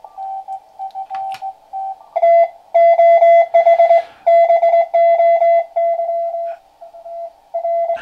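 Morse code (CW) received on the 40-metre amateur band by a QRP-Labs QCX-Mini transceiver and played through a small amplified speaker: a steady tone of about 700 Hz keyed on and off in dots and dashes. A weaker signal sounds for the first two seconds, then a much louder station takes over.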